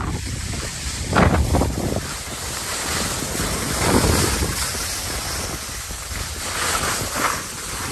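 Wind buffeting the microphone of a rider moving fast downhill, under the steady hiss and scrape of skis or snowboard edges on groomed snow. The rushing swells louder with turns about a second in, at four seconds and near the end.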